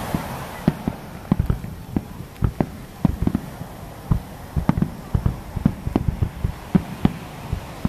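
Aerial firework shells launching and bursting in a rapid finale barrage: sharp booms, several a second, in an uneven run.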